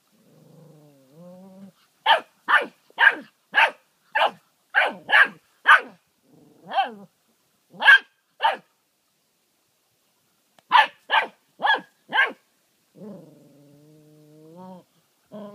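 Puppy growling low, then barking in quick, sharp runs: about eight rapid barks, a few spaced ones, a short pause, four more, and a long low growl that rises at its end.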